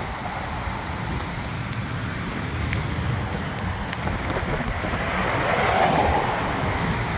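Wind rumbling on the microphone, a steady low noise with no engine note, swelling slightly a little past the middle.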